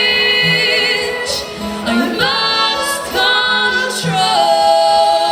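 Live music: women singing long held notes with vibrato, a held note near the end easing down in pitch at the close of a line.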